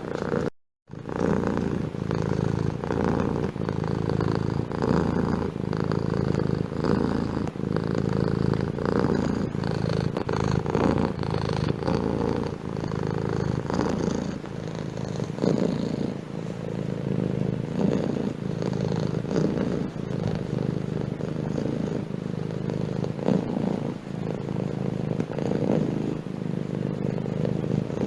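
Domestic cat purring steadily, with a regular pulsing rhythm and a brief cut to silence just under a second in.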